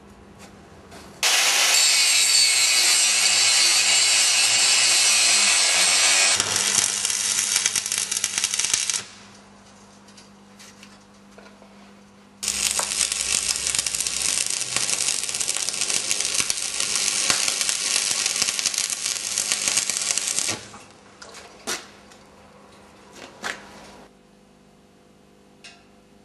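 Electric arc welding on steel strips: two long runs of steady crackling hiss, each about eight seconds, with a pause of a few seconds between them. A few light clicks follow near the end.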